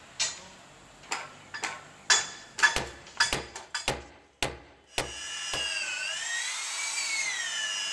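Woodworking on a wooden window frame: a dozen or so sharp, irregular knocks of chisel work into the wood, then about five seconds in a corded electric drill starts up and runs with a steady whine that dips in pitch as the bit bites and rises again.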